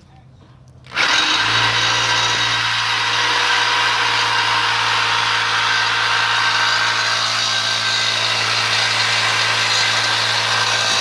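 Corded reciprocating saw switched on about a second in and running steadily, its blade cutting into a steel exhaust pipe. It is cutting poorly, which the users take for an already dull blade.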